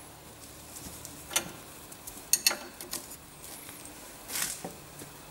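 Ring spanner on a castellated nut giving a few sharp metal clicks as the nut's tightness is checked. There is one click about a second and a half in, a quick cluster a second later, and a short scrape near the end.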